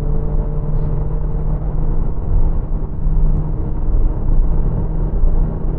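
Nissan Juke Nismo's 1.6 DIG-T turbocharged four-cylinder petrol engine pulling at high revs, about 4,900 rpm, as the X-Tronic CVT held in its simulated third gear accelerates the car toward 100 km/h. A steady engine hum that rises slightly in pitch, with the exhaust subdued in eco mode.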